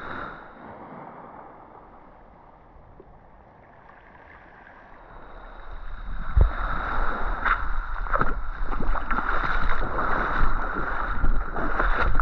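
Sea water sloshing and gurgling. It is quiet at first and grows louder from about halfway through, with frequent small clicks and crackles.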